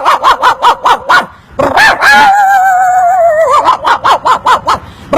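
A man imitating a small dog with his mouth: quick high yaps, about six a second, then a long wavering whine near the middle, then another run of yaps.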